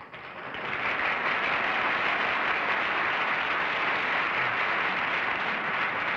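Studio audience applauding, swelling over the first second and then holding steady.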